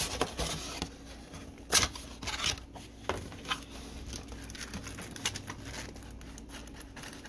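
Cardboard trading-card box being opened and handled: flaps and sleeve rustling and scraping, with scattered sharp clicks and taps, the loudest a little under two seconds in.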